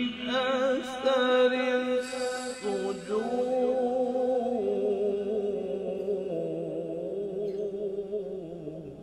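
A man reciting the Quran in the melodic qirat style, holding long drawn-out notes with wavering ornaments. The voice fades away near the end.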